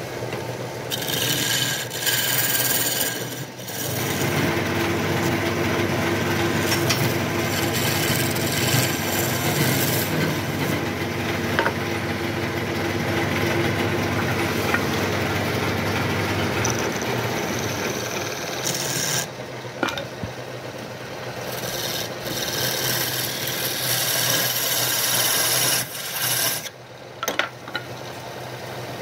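Wood lathe running with a low hum while a flat steel scraper cuts the end of a spinning wooden blank, giving a continuous scraping hiss. The cutting noise drops away briefly a few times as the tool comes off the wood.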